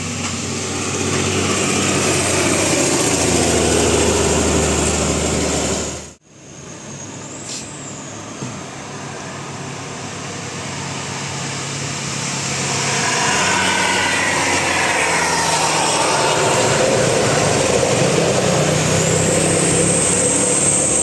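Large diesel tour buses running and driving past, with a steady low engine tone; the sound drops out briefly about six seconds in, then the engine noise builds again as another bus goes by.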